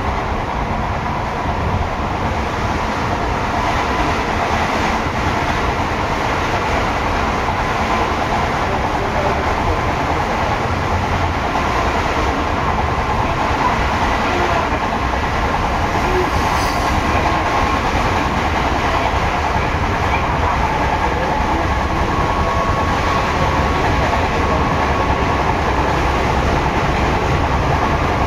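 Seibu 6000 series electric train with Hitachi GTO inverter drive running at speed: a steady rumble of wheels and running gear heard inside the car above the line breaker, with faint steady whining tones and a slow rise in loudness.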